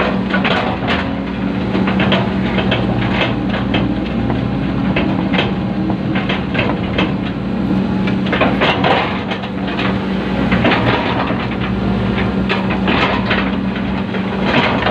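Excavator's diesel engine running steadily under load, with irregular clanks and rattles from the working machine.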